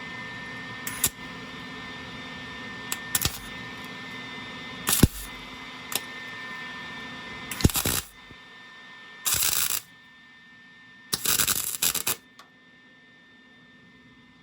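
Electric welder tack-welding an exhaust hanger bracket: about six short bursts of arc crackle, the later ones lasting half a second to a second, over a steady hum that drops away about eight seconds in.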